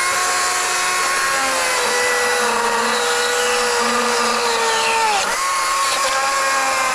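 Power carving tool running at high speed into wood, a steady high whine whose pitch sags briefly under load about five seconds in, then picks back up.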